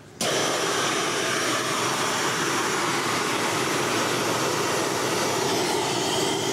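CO2 fire extinguisher discharging into a cloth bag: a loud, steady hiss that starts abruptly a moment in. The expanding carbon dioxide is freezing into dry ice snow inside the bag.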